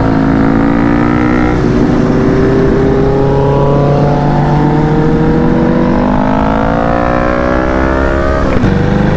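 KTM Duke 390's single-cylinder engine accelerating under the rider, its pitch climbing in steps as it shifts up through the gears, with an upshift about a second and a half in and another near the end.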